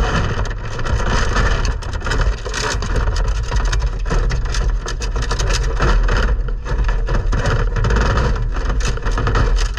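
Prairie dogs scrabbling on a wire-mesh cage floor right beside the microphone: a dense run of scratching and clicking over a low rumble.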